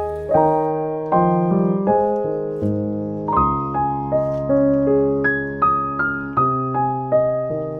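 Background piano music: a slow, gentle melody of single notes and chords, a new note struck about twice a second and each left to fade.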